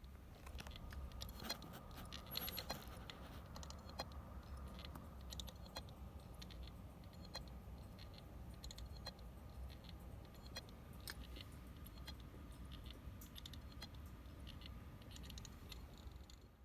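Hard disk drive clicking abnormally: irregular sharp clicks, a few a second, over the steady low hum of the running drive. The clicking is the sign of a faulty drive.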